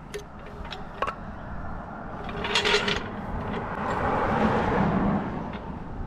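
A blue hydraulic floor jack and a wooden block being set under a trailer frame: a few sharp knocks, then a short metallic rattle. After that comes a broad rush of noise that swells and fades.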